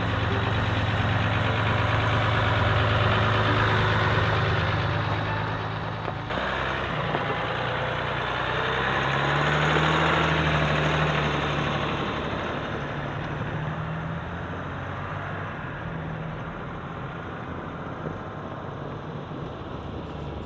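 Jeep Gladiator pickup with its engine running steadily. The sound changes abruptly about six seconds in, and the engine note rises slightly around ten seconds.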